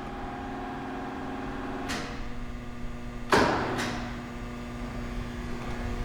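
Wide belt sander's motorized table lift running with a steady hum as it drives to the set thickness, then stopping with a click about two seconds in. A loud clunk follows about a second later, then a smaller click, under a lower steady hum.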